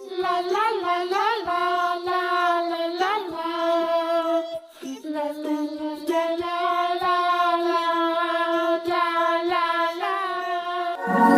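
Background music: a high, child-like voice singing a melody over a light, regular beat.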